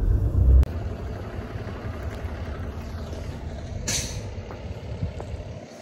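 Low rumble inside a moving car, cut off suddenly about half a second in; then outdoor street noise with a steady low rumble and a short hiss about four seconds in.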